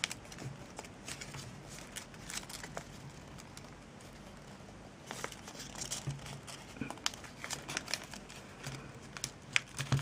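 Origami paper crinkling and rustling as it is pinched and creased by hand, in scattered crackles that come thicker in the second half.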